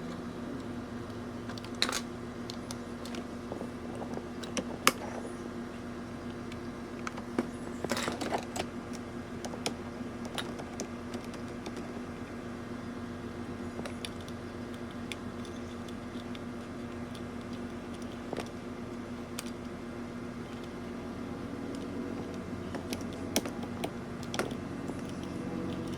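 Scattered small clicks and taps of tools on a circuit board as component pins are seated and soldered, over a steady low hum.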